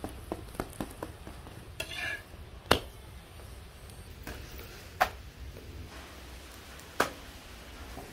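Flatbread cooking on a griddle: a faint steady sizzle, with a quick run of small clicks in the first second and three louder sharp clicks about two seconds apart.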